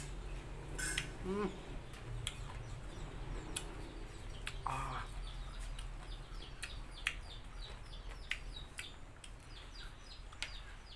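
Close-up chewing and mouth clicks of a person eating a pomelo and fresh shrimp salad. Chickens cluck and small birds chirp faintly in the background.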